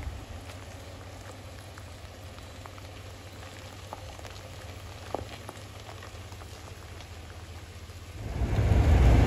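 Steady rain falling, with scattered single drops ticking. About eight seconds in, a much louder low rumble of a car driving in the rain takes over.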